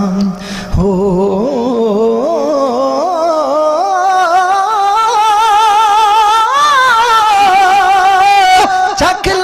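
Male voice singing kavishri, Punjabi poetic folk singing, in long drawn-out notes with a heavy, even vibrato. There is a short break for breath about half a second in.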